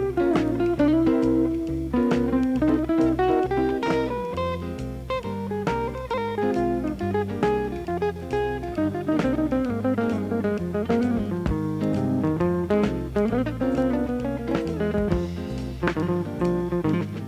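Instrumental background music led by a guitar playing a melodic line over bass and a steady beat.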